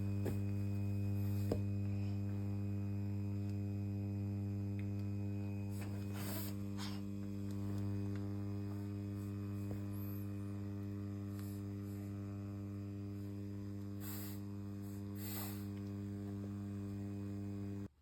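Electric fan motor running at speed with a steady low hum and a ladder of overtones; it cuts off suddenly at the end.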